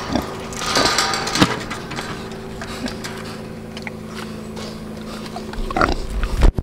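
A pig grunting at the wire fence of its pen, with a low thump near the end.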